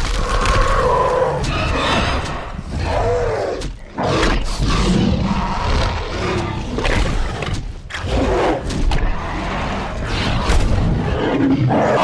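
Film sound-effect dinosaur roars and growls: a run of growling calls, several gliding down in pitch, over a deep rumble, with short breaks between them.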